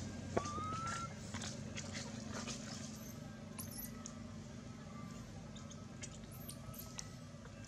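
A newborn long-tailed macaque gives one short rising whimper about half a second in, followed by a few faint, thin high squeaks, with light rustling of dry leaves as the mother handles it.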